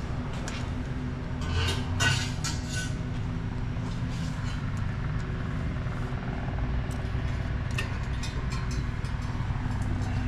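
A WD-40 aerosol can hissing in short spray bursts onto rubber exhaust hangers, about two seconds in, to loosen them for removal. Under it runs a steady low hum, with a few light clicks later on.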